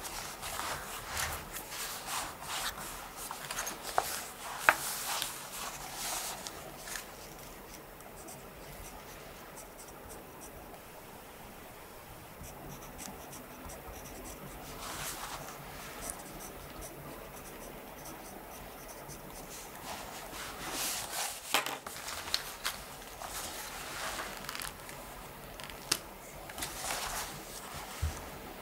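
Pen scratching across notebook paper in bursts of writing, with a quieter stretch in the middle and a few sharp clicks.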